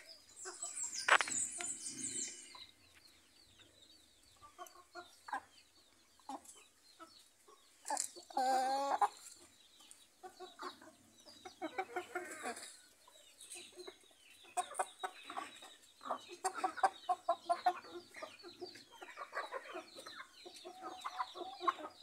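Free-range hens and roosters clucking on and off. About eight seconds in, one bird gives a louder drawn-out call, and there is a sharp high-pitched sound about a second in.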